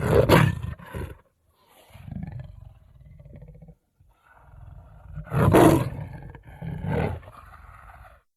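Smilodon (sabre-toothed cat) sound effect: two loud big-cat roars about five seconds apart, each followed by a shorter second roar, with quieter low growls in between. It cuts off suddenly near the end.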